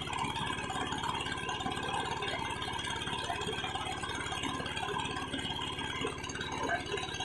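Small engine running steadily with a fast, even chug and a rattle over it, as from a country boat's motor.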